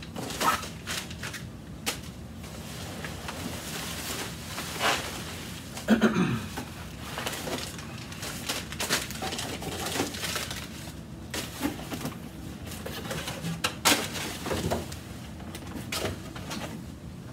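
Rustling and crinkling of bubble wrap and plastic packing, and a cardboard shipping box being handled, as parts are lifted out by hand. It comes as a run of short, irregular scrapes and rustles, with a couple of louder knocks about six and fourteen seconds in.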